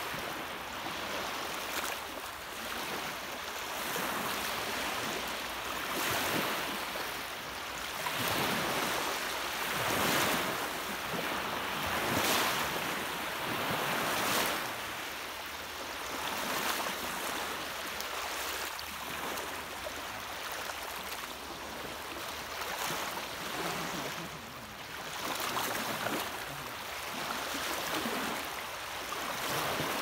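Small sea waves breaking and washing over a shallow sandy shore: a steady hiss of surf that swells and eases every couple of seconds.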